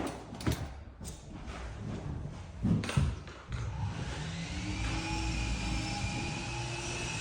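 A few knocks, then a small motor starts and runs steadily, its pitch rising a little as it comes up to speed.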